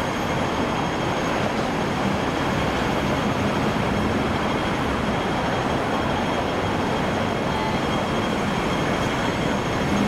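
Steady noise of busy city-street traffic, with double-decker buses and cars running at a road crossing.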